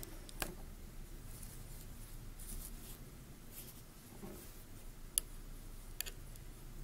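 Quiet scratchy rustle of yarn being worked off the pegs of a plastic knitting loom with a metal loom hook, with three sharp clicks of the hook against the loom.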